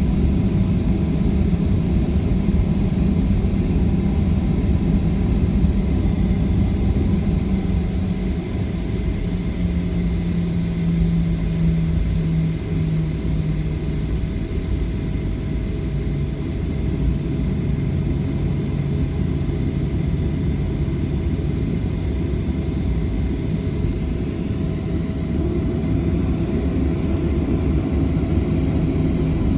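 Boeing 737-800's CFM56 jet engines running at low power, a steady low rumble with a hum that drops a little in pitch about halfway through.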